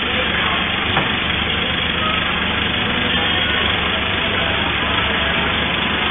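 Pickup truck's engine idling steadily under a constant hiss, with a single faint click about a second in.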